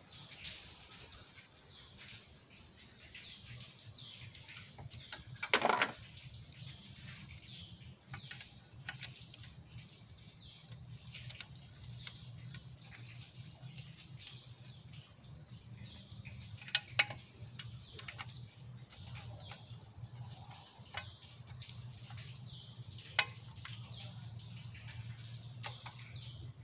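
A few sharp metal clicks and clinks of bolts and a hand tool as the intercooler is fitted on top of the engine: a short clatter about five seconds in, two close together around seventeen seconds, one more near twenty-three. Between them, a faint steady hiss and low hum.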